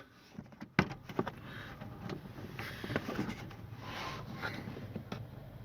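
Hands working car interior trim into place: scattered small clicks, taps and rustling, with one sharp click a little under a second in.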